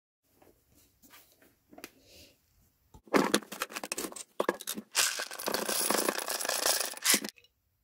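Almonds clattering as they are poured out of a plastic container: a dense rattle of many small hard nuts in two pours, the second one longer, which stops suddenly. Faint handling clicks come before the pouring.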